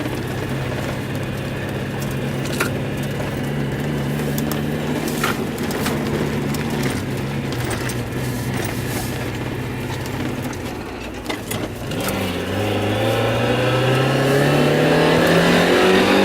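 Mazda Miata's four-cylinder engine running at a steady speed. About eleven seconds in its note breaks off briefly, then it climbs steadily in revs under acceleration.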